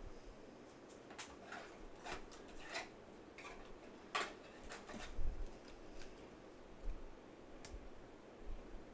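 A thin plastic penny sleeve crinkling and clicking as a trading card is handled and slid into it. There are a few dull bumps around the middle, the strongest about five seconds in.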